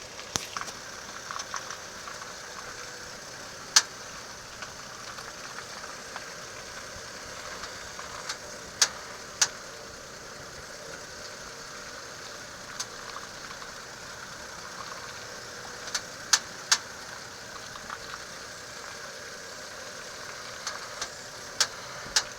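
Car engine idling steadily while sharp pops come from the steering rack and pinion, a dozen or so at irregular intervals with the loudest about four seconds in. The pops were traced to play in the steering rack's bushings and a loose aluminum skid plate shifting.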